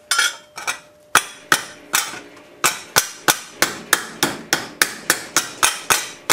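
Rubber mallet striking a thin metal strip as it is bent around a round bar held in a vise, forming a curved band. A few spaced strikes at first, then a steady run of about three sharp blows a second from about halfway.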